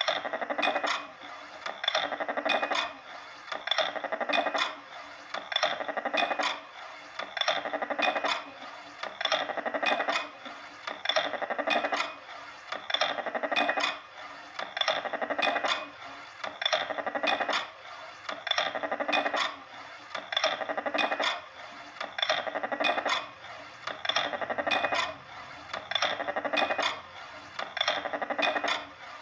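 Amplified homemade sound box, a metal plate fitted with springs and a small mechanism, played through an effects pedal. It makes a metallic scraping and clicking figure that repeats evenly about once a second.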